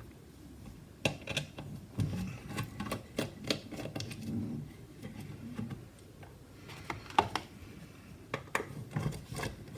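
Scattered small clicks and taps of a T6 Torx screwdriver working out the little screws that hold a 2014 Mac Mini's antenna plate.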